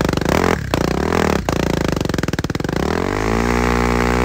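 BMW G 310 GS single-cylinder engine revving through an aftermarket Akrapovic exhaust with the dB killer fitted. It revs repeatedly with rapid firing pulses, breaks off briefly twice in the first second and a half, then climbs into a longer rev that holds near the end.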